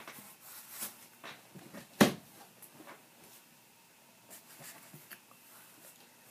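A few light knocks and clicks in a small room, with one sharp knock about two seconds in.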